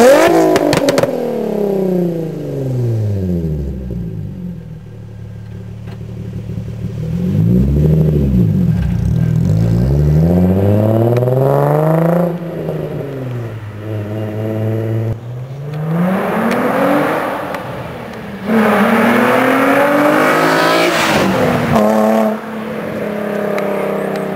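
Nissan 350Z's 3.5-litre V6 through a custom true dual Magnaflow exhaust with test pipes: a rev dying away at the tailpipes, another blip, then the car pulling away and accelerating, its pitch climbing and dropping back several times before settling to a steady drone as it moves off.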